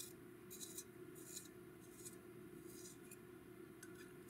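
Faint scraping strokes of a KUM long-point sharpener's second-stage blade shaving a coloured pencil's lead to a point, a short rasp every half second to a second as the pencil is turned.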